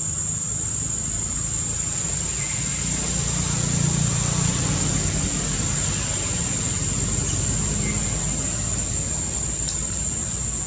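Steady high-pitched drone of insects, over a steady low rumble that swells slightly about four seconds in.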